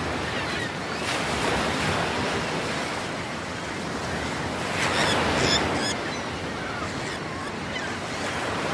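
Sea surf washing and breaking on a rocky shore, swelling about a second in and again about five seconds in.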